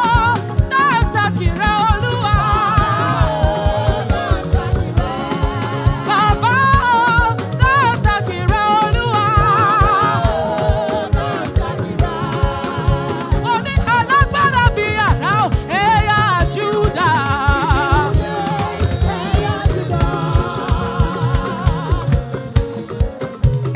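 Gospel praise music from a church choir: voices singing with a wavering vibrato over a band with a fast, steady drum beat.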